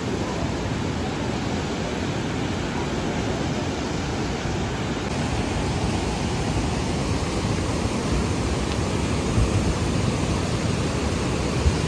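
Fast-flowing river water rushing in a loud, steady wash of noise.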